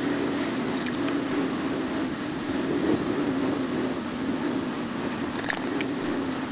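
Steady rolling and wind noise of a bicycle being ridden along a paved asphalt trail, with a couple of faint clicks about a second in and again after five seconds.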